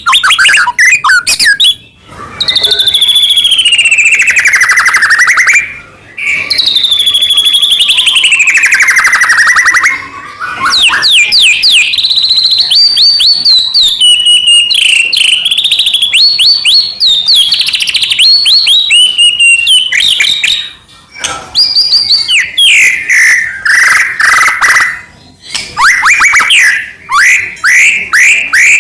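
White-rumped shama (murai batu) in full, loud song: two long phrases of rapid notes sliding down in pitch in the first ten seconds, then fast runs of sharp whistled notes and quick sweeps broken by short pauses.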